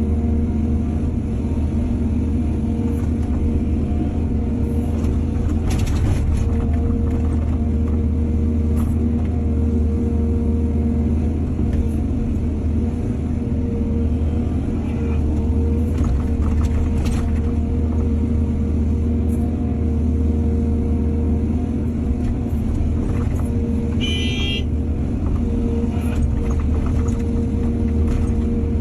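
Heavy diesel excavator engine running steadily under load, with a few short clanks and a brief high-pitched squeal a little past two-thirds of the way through.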